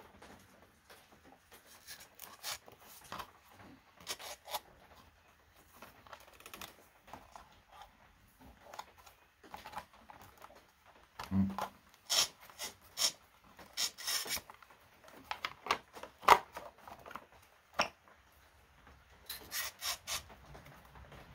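Hands handling and pressing a plastic cover and rubber piece onto a motorcycle frame: scattered rubbing, scraping and small clicks of plastic and rubber, with a run of sharper clicks a little past halfway.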